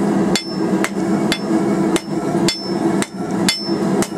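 Hand hammer striking hot quarter-inch steel bar stock on the edge of an anvil, about two blows a second, drawing out a taper with the bar turned between blows. Some strikes leave a short high ring, and a steady low hum runs underneath.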